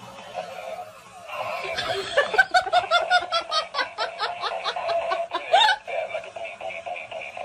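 Laughter: a fast run of short 'ha' pulses, about five a second, lasting several seconds and ending with a louder peak, over a steady tone.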